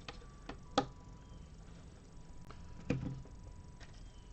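Plastic LEGO bricks clicking as pieces are handled and pressed into place: a few short, sharp clicks, the sharpest about a second in and another near three seconds.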